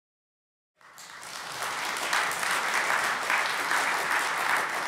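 Congregation applauding. The clapping cuts in abruptly just under a second in and builds over the next second to a steady level.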